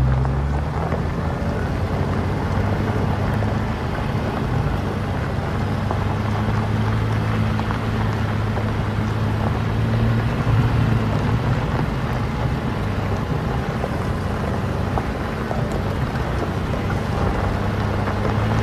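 Jeep Wrangler LJ engine running steadily under load while towing a trailer, with tyre and road noise; the engine note rises briefly at the start.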